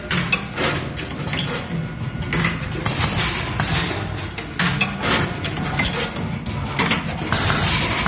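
Automatic wire stripping, twisting and soldering machine running: short hisses of air from its pneumatic cylinders and sharp mechanical clicks, coming irregularly every second or two over a steady low hum.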